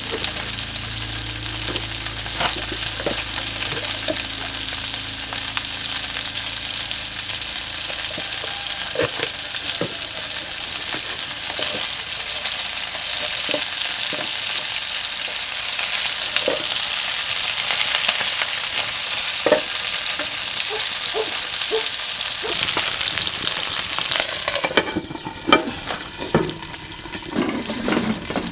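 Food frying and sizzling in a pan while it is stirred, with scattered taps of the utensil against the pan. A low hum fades out about a third of the way in. Near the end the sizzle thins and the scraping and tapping stand out more.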